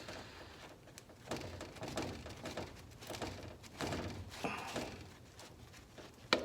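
Metal parts and tools scraping and knocking while an overdrive piston is worked out of its bore, in two bouts of irregular scraping, with a sharp click near the end.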